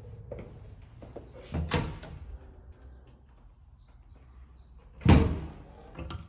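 Wooden built-in cabinet doors being opened and shut by hand: a double knock about a second and a half in, then a louder bang of a door closing about five seconds in.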